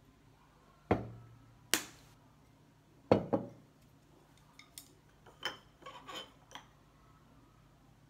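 Tableware handled on a table: four sharp knocks and clinks in the first half, the second one ringing bright and high, then a run of lighter clicks and taps.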